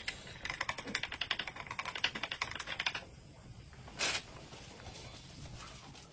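Chopsticks stirring soy sauce and pepper in a drinking glass: rapid clicking against the glass for about three seconds, then a single short hiss about four seconds in.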